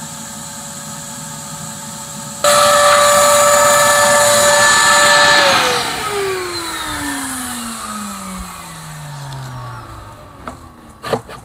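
A motor-driven machine whines steadily, then about two seconds in it gets much louder with a rush of hissing air. A few seconds later the motor shuts off and winds down, its pitch falling steadily for about four seconds, and a few clicks follow near the end.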